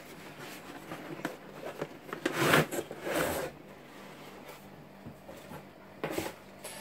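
Hard plastic tool case scraping and sliding out of its cardboard box: two rustling scrapes in the middle, then a shorter one near the end as the case is handled.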